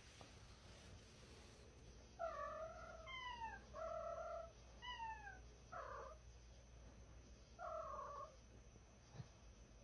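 A cat yowling in a run of about six short calls, two of them falling in pitch, starting about two seconds in. The calls are cat-to-cat hostility in a standoff with a stray at the window.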